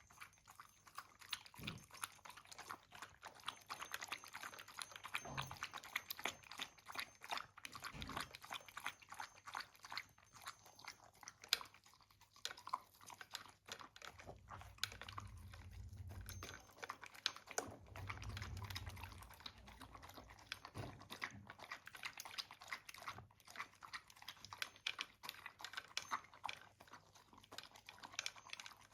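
A dog eating dry food: dense, rapid crunching and clicking of kibble as it chews, with two spells of low rumbling about halfway through.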